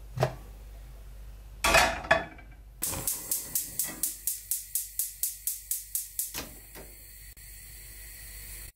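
Gas hob burner being lit under a frying pan: the spark igniter clicks rapidly, about four clicks a second for some three seconds, then the lit burner hisses steadily. A short clatter comes just before the clicking.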